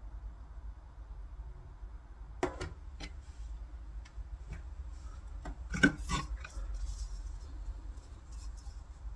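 Small clicks and rubbing from handling a fishing rod and its line guide on a work surface, a few scattered ticks with the loudest cluster about six seconds in, over a low steady hum.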